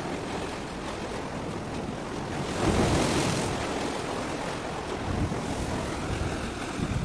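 Wind noise on the microphone over a steady rush of sea and waves, with a louder rush about two and a half seconds in that lasts about a second.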